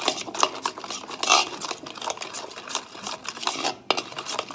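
A hand mixing a thick butter and chilli-powder marinade paste in a stainless-steel pot: irregular wet squishing and scraping of fingers against the metal, with a few sharp clicks.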